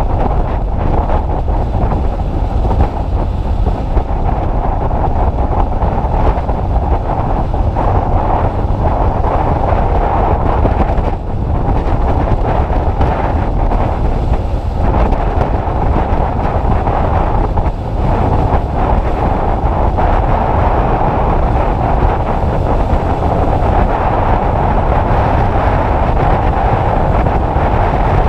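Heavy wind noise buffeting the camera microphone on a Honda CBF600 motorcycle under way, a steady rush with a low rumble beneath it.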